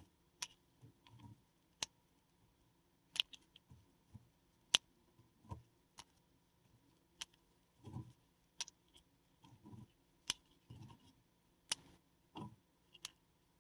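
A paradichlorobenzene mothball being crushed by hand: sharp little cracks at irregular intervals, roughly one a second, with soft crumbling and rustling between them as the tablet breaks up.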